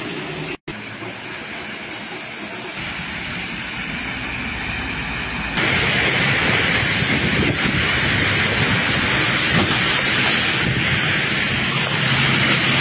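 Steady travel noise of a vehicle moving along a rain-wet road, heard from on board. About five and a half seconds in the sound jumps to a louder, hissier noise.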